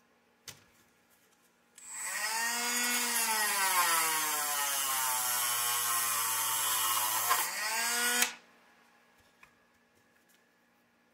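Handheld rotary tool (Dremel) starting about two seconds in and running for about six seconds. Its pitch sinks steadily as it is pressed into the work, grinding a modification into the buggy's rear part, then climbs briefly before it switches off.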